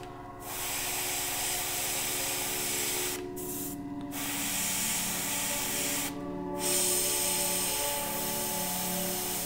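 Airbrush spraying paint, a steady hiss that stops briefly three times as the trigger is let off and pressed again, while a light highlight coat goes on.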